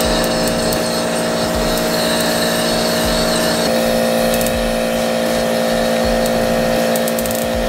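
Steady machine hum with a hiss of air, cutting in abruptly: the compressed-air supply running while a powder coating gun sprays. The hum's pitch shifts slightly about halfway through.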